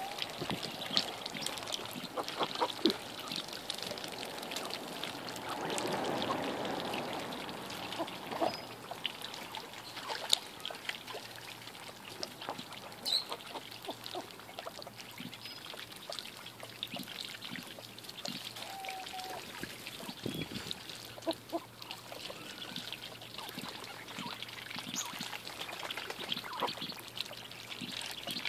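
Ducks dabbling at the water surface, their bills sieving and slurping up small floating food, with a steady run of small splashes and watery trickling that swells for a couple of seconds early on. A short duck call sounds once, about two-thirds of the way through.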